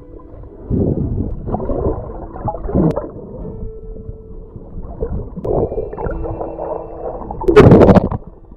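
Underwater sound picked up by a camera on a mussel dive: muffled, irregular water movement and gurgling, with one loud sudden burst near the end.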